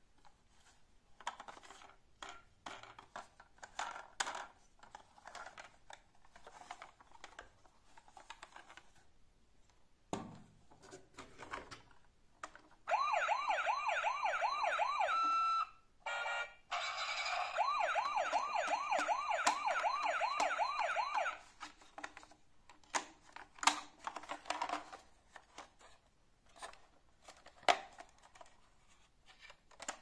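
Battery-powered toy ambulance's electronic siren sounding twice, a fast rising-and-falling wail at about four sweeps a second, first for about three seconds and then, after a short break, for about four and a half seconds. Before and after, plastic clicks and knocks from handling the toys.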